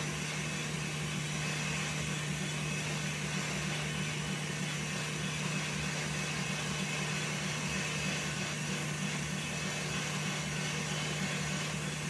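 KitchenAid stand mixer running steadily, a steady low motor hum, its whisk whipping egg whites into meringue as hot sugar syrup is streamed in.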